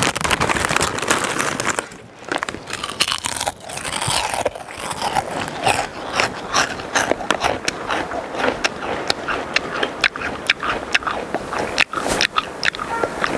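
A person eating loudly and messily with the mouth open: rapid wet chewing, smacking and crunching, several sounds a second, made to be annoying.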